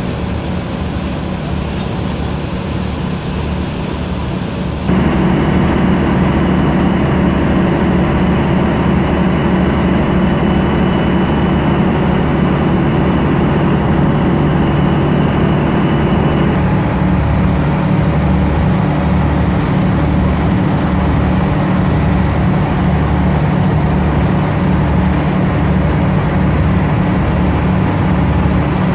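Car ferry's engines running steadily under way: a loud, low, pulsing hum. It gets abruptly louder about five seconds in.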